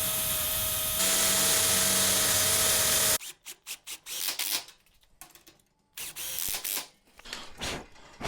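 Power drill motor running steadily, picking up speed and getting louder about a second in, then stopping abruptly about three seconds in. Scattered metallic clicks and knocks follow.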